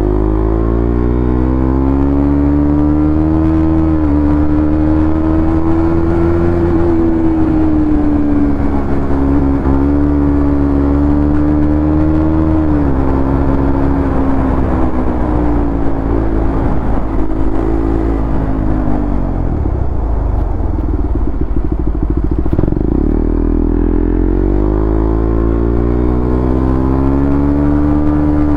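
KTM Duke 390's single-cylinder engine and exhaust accelerating through the gears: the pitch climbs and drops sharply at each upshift, three times in the first half, then sags low a little past the middle as the throttle eases before pulling up again near the end.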